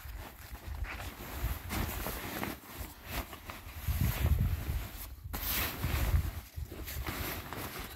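Blue nylon pop-up tent being folded by hand: the fabric rustles and crumples in irregular bursts as its hoop frame is twisted down into coils, over a low rumble of wind on the microphone.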